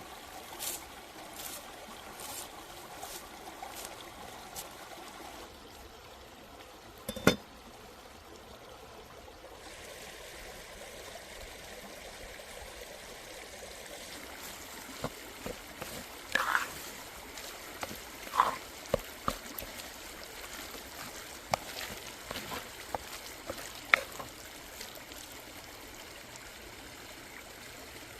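Water trickling steadily, with a few sharp knocks; the loudest comes about seven seconds in.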